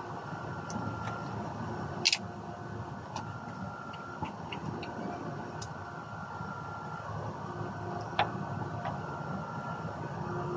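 A few sharp clicks and knocks as a shotgun is handled and wiped down with a cloth, over a steady background hum. The loudest click comes about two seconds in, and another near the end.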